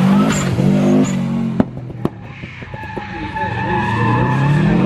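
First-generation Subaru Impreza rally car's flat-four engine revving hard close by. About a second and a half in, the sound drops suddenly, and then tyres squeal in a long steady screech as the car slides through a turn. The engine revs climb near the end.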